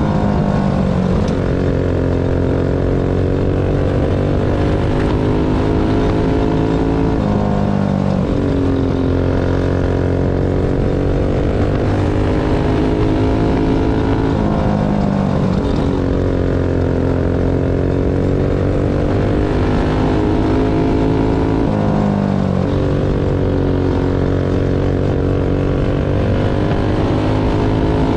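Racing kart engine heard from the driver's seat at full race pace, the revs dropping into each turn and climbing again down the straights, a cycle that repeats about every seven seconds, four times over.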